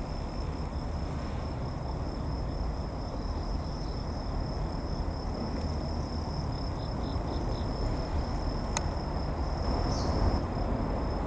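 Insects chirring: one steady high trill that does not stop, over a constant low rumble, with a single sharp click near the end.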